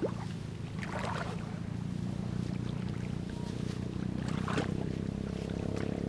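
A steady low drone runs throughout. Over it come a few brief swishing rustles, about a second in and again near the end, as someone wades through rice stalks and muddy paddy water.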